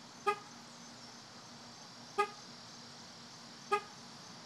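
Car horn giving three brief toots, each a single short pitched beep, the second and third following after gaps of about two seconds and a second and a half.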